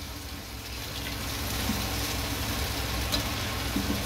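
Prawns sizzling quietly in a pan of garlic butter as they are stirred with a spatula, with a few light knocks of the spatula against the pan near the end, over a steady low rumble.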